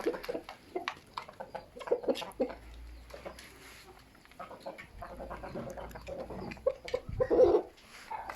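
Domestic chickens clucking in irregular short calls, loudest near the end, with gusts of wind rumbling on the microphone.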